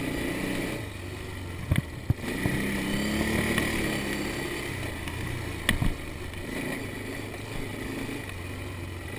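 A vehicle driving, its engine humming steadily with road noise and a slight rise and fall in engine pitch. There are a few sharp knocks, about two seconds in and again near six seconds.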